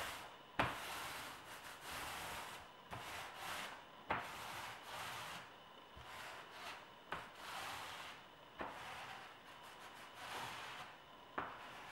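Foam paint roller rolling a base coat of paint across a board in repeated up-and-down strokes: a faint, soft rasping hiss that swells and fades with each stroke, with a sharp tick every few seconds.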